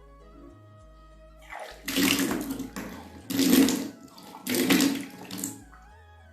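Three gushes of water expelled from the mouth, each under a second, the regurgitation of swallowed salt water in kunjal kriya.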